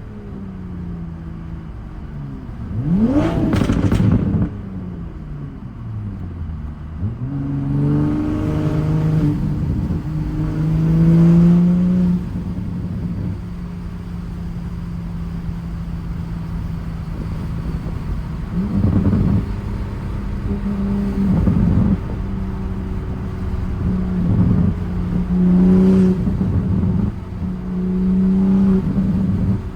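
Straight-piped, catless-downpipe turbocharged MK5 Toyota Supra engine under way. About three seconds in it revs up sharply and falls away with sharp cracks. It then pulls through several more surges of throttle between stretches of steady cruising drone.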